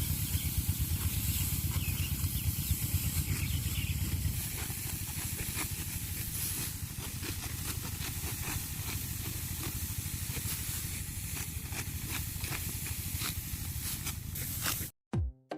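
The engine of a rice-harvesting machine running in the field, a fast-pulsing low rumble under a steady hiss, with the rumble easing about four seconds in. Electronic music with a beat cuts in at the very end.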